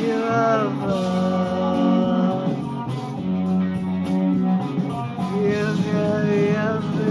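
A rock song: a sung melody of long held notes over guitar accompaniment.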